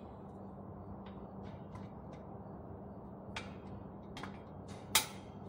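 Scattered short clicks and taps from hands working on the handle fittings of an upturned wire shopping cart, the loudest a sharp click near the end, over a steady low hum.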